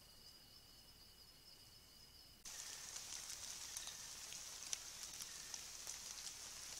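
Faint forest night ambience with steady high-pitched insect calls. About two and a half seconds in, an abrupt cut brings a louder, even high hiss with scattered faint clicks.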